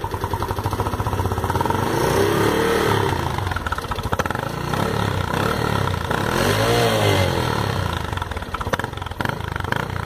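Honda Biz underbone motorcycle's single-cylinder four-stroke engine revved up and back down twice over a rapid idle beat. It runs through the stock muffler with a modified outlet, which gives it a strong ('fortão') exhaust note.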